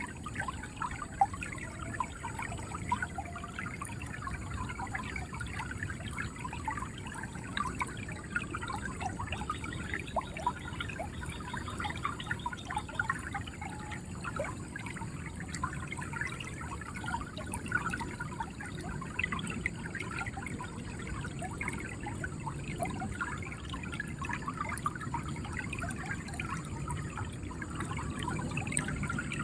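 River water flowing steadily, with a constant dense gurgling and bubbling over a low rushing undertone.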